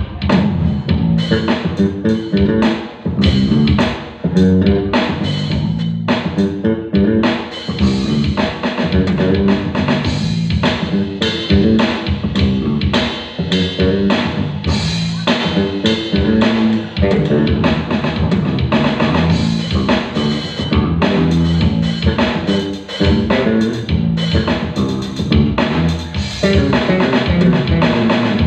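Band music with drum kit, bass guitar and guitar playing at a steady beat, loud throughout.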